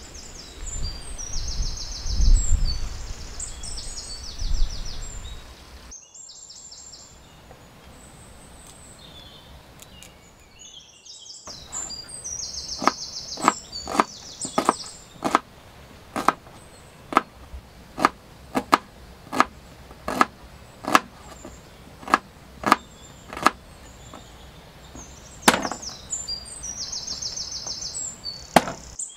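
A kitchen knife striking a wooden cutting board, single chops about one a second, as garlic and onion are sliced. Small birds chirp in bursts of quick repeated notes, and the opening seconds hold a low rumble.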